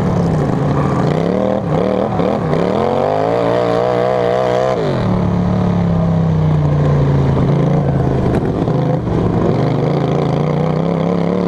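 Racing lawn mower's engine running hard under the rider: its pitch dips and climbs over the first five seconds, drops abruptly about five seconds in, then holds roughly steady, sagging slowly.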